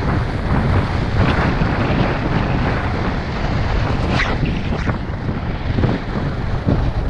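Heavy wind buffeting a GoPro microphone at downhill skiing speed, about 25–30 mph, heard as a steady low rumble. Under it the skis hiss over groomed snow, with a couple of sharper scrapes about four and five seconds in.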